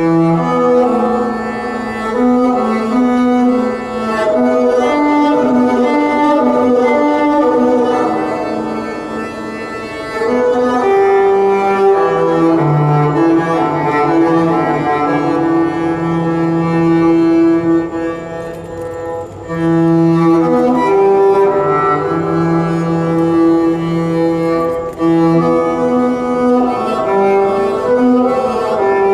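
Earth harp: very long strings stretched across the stage, stroked by hand so that they sound sustained, cello-like notes. The notes are held for a second or more and change pitch, often two or three sounding together, with a short lull about 19 seconds in.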